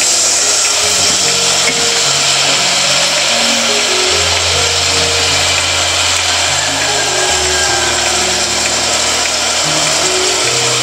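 Shrimp sizzling in a pot over a wood fire: a steady hiss. Background music of slow, held low notes plays underneath.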